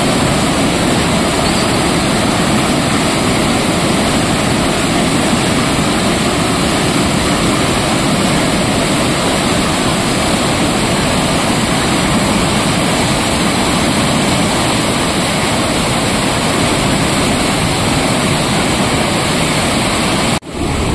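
Loud, steady rush of muddy floodwater churning over rapids: a stream overflowing its banks after heavy rain.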